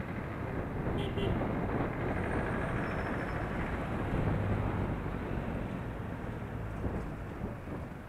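Street traffic noise heard while riding: a steady rumble of passing vehicles and road noise mixed with wind on the microphone, swelling a little after the first second and easing near the end.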